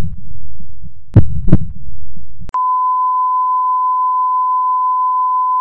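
Heartbeat sound effect: two double thumps over a low rumble. About two and a half seconds in it cuts off and a steady single-pitched beep takes over and holds.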